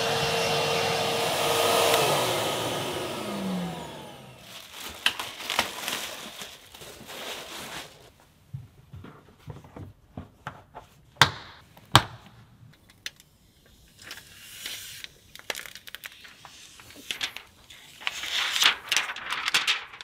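A vacuum cleaner runs with its hose in a car's footwell, then is switched off about two seconds in and winds down with a falling whine. After that comes the rustle and knocking of a rubber floor mat being handled and lifted out, with two sharp clicks near the middle.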